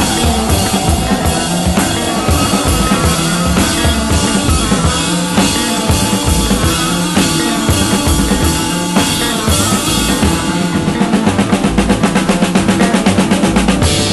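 Rock band music with a full drum kit, bass and other instruments. For the last few seconds the drums play a run of fast, even strokes, like a drum roll.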